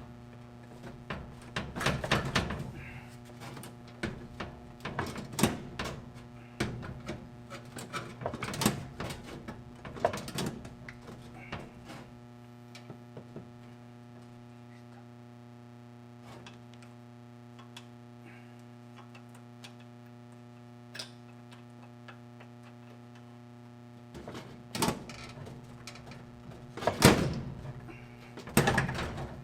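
Irregular knocks and clanks of tools and metal parts being handled as a washing machine is taken apart, over a steady low hum. The knocking stops for about twelve seconds in the middle, then comes back with a few loud knocks near the end.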